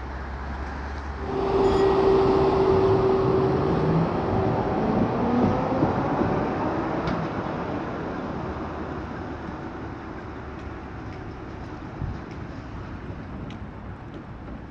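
Konstal 13N vintage tram passing close and pulling away, its motors whining and rising in pitch as it accelerates over the rails. The sound swells about a second in, then fades as the tram moves off, with a single click from the track near the end.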